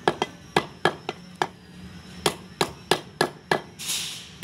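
Heavy butcher's cleaver chopping goat meat on a wooden log chopping block: about a dozen sharp chops, roughly three a second, with a short pause partway through. A brief scraping hiss comes near the end.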